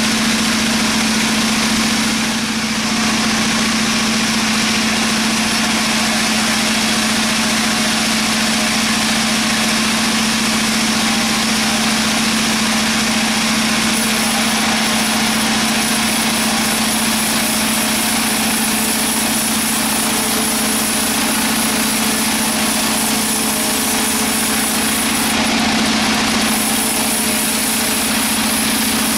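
Sawmill machinery running steadily, a constant engine-like drone with a strong low hum.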